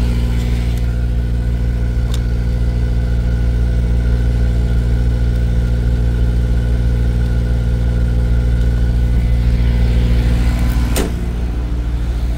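Semi-truck's diesel engine idling steadily, with a single knock near the end.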